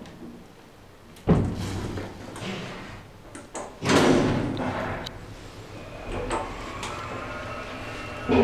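Freight lift doors closing: a bang about a second in, then a longer sliding rush as the door runs shut, followed by a steady whine as the lift's bottom-drive traction machine starts up, with a thump near the end.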